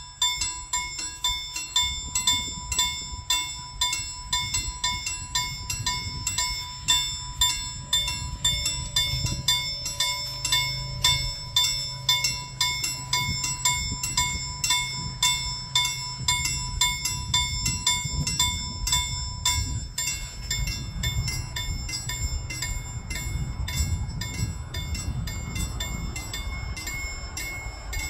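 Railway level-crossing warning bell ringing in rapid, even strokes while the barriers come down. A low rumble builds underneath in the second half.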